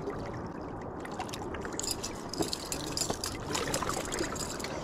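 Water trickling and lapping among shore rocks, with the links of a metal chain fish stringer clinking repeatedly from about a second in as it is handled over the water.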